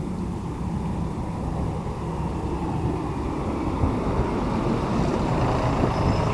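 Road traffic noise, with motor vehicles passing on the street. It is a steady rumble that grows a little louder and fuller from about two seconds in, as a vehicle comes closer.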